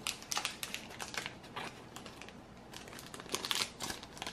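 Plastic packaging crinkling in the hands as small board game components are handled, in quick irregular crackles with a louder flurry about three and a half seconds in.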